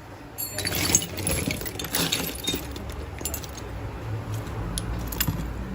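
Loose metal carburetor parts clattering and clinking together as someone rummages through a box of them, with irregular sharp clicks throughout over a low steady hum.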